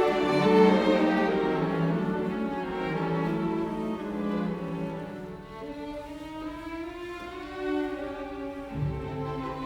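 Background music: slow bowed strings, violin and cello, holding sustained notes.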